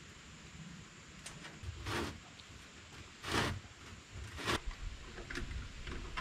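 A few short scrapes and rustles, the loudest about halfway through: a metal chimney cap with spark-arrester mesh being handled and slid down over a stovepipe.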